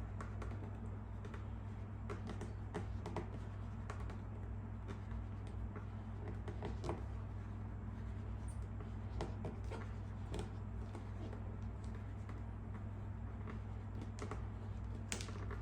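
Scattered faint clicks and rustles of a vinyl decal and its backing paper being handled and pressed onto a plastic motorcycle fairing, over a steady low hum.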